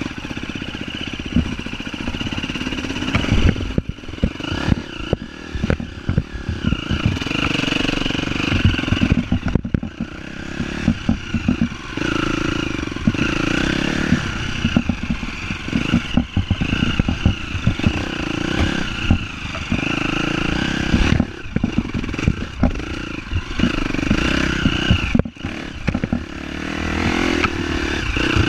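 Off-road vehicle engine revving up and easing off over and over while riding a rough trail, with rattling and knocks from the machine jolting over ruts.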